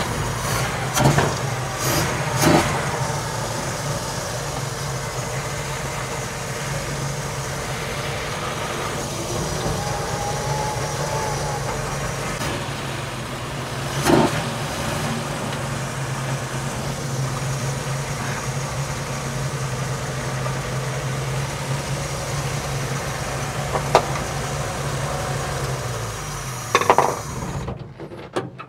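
Holden 186 inline-six engine running at low revs as the truck creeps slowly along, then switched off near the end, with a few sharp knocks along the way. The owner suspects its ignition timing is retarded.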